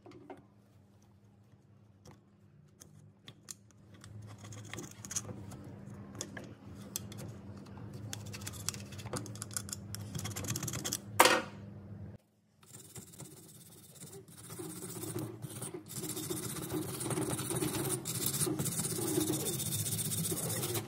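Screwdriver tip scraping and picking caked sawdust off a chainsaw's body around the clutch drum: a run of small scratches and clicks, with one sharper knock about eleven seconds in and denser, steadier scraping in the second half.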